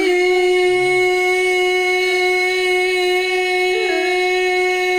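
A man singing a Holi song unaccompanied, holding one long note at a steady pitch, with a brief waver about four seconds in.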